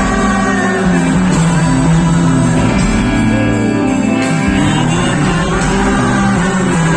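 Rock music: a recorded rock song led by guitar over bass, with some singing.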